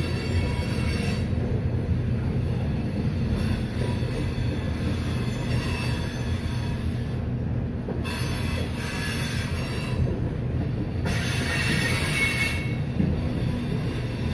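Freight train of hopper cars rolling past with a steady low rumble, its wheels squealing on the rails in patches that come and go every few seconds.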